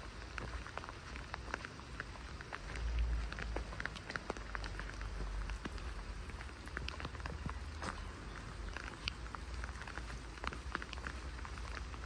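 Light rain falling: scattered sharp raindrop ticks over a steady soft hiss, with a brief low rumble about three seconds in.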